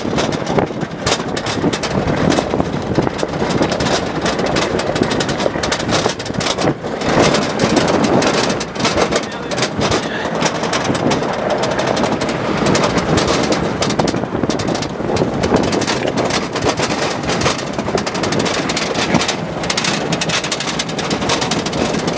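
Land Rover Defender driving over a rough dirt track, heard from inside its open-sided back: steady engine and tyre noise with constant rattling and knocks from the bumpy ground, and wind rumbling on the microphone.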